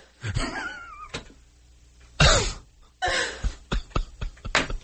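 A man grunting and groaning in anger, with a loud strained grunt about two seconds in and short breathy grunts after it.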